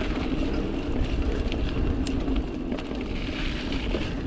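Mountain bike rolling fast down a dirt singletrack: a steady rumble of tyres on the packed trail, with short rattles and clicks from the bike, the sharpest about two seconds in.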